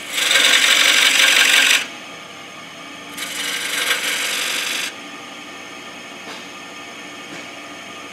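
Pointed turning tool scoring thin decorative lines into the face of a spinning wooden piece on a lathe. Two hissing scrapes of about a second and a half each, the first right at the start and the second about three seconds in, over the steady run of the lathe.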